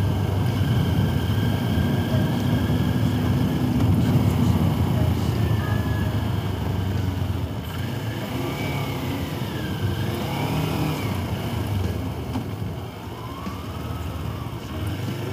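Motorcycle engine running under way with wind rushing over the helmet microphone, easing off and growing quieter from about halfway in.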